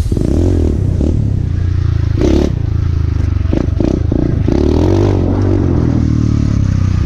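Motorcycle engine running under way, its revs climbing and dropping as the throttle is worked, with clattering and scraping from the bike over rough, muddy ground.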